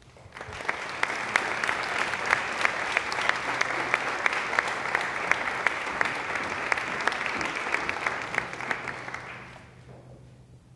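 Audience applauding, with some near, sharp hand claps standing out in the crowd's clapping. It starts just after the beginning and dies away about a second before the end.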